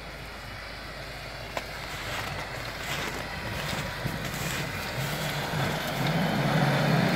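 Petrol 3.0 V6 engine of a lifted Mitsubishi Delica running under load as the van drives up a snowy track, growing steadily louder as it approaches.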